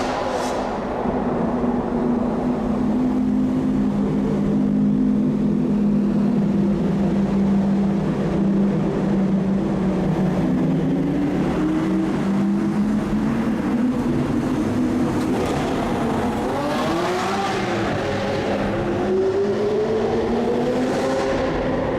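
Supercar engine running under way, its note holding steady for most of the stretch, then rising and falling over the last several seconds as the revs change.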